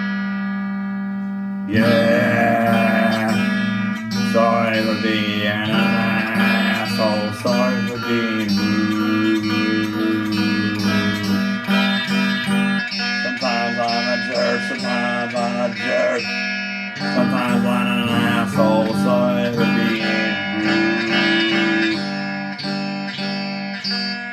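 Instrumental break of a guitar-backed song: a sliding guitar melody over a steady held bass note, with no singing.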